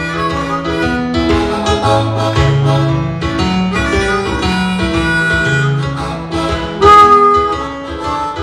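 Harmonica played into a microphone, a melody over an accompaniment with a moving bass line. A loud high note is held about seven seconds in.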